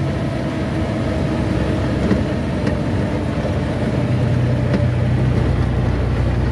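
Truck engine and road noise heard inside the cab while driving. The low engine hum drops back after the start and comes up strongly again about four seconds in, as the engine is put back under load.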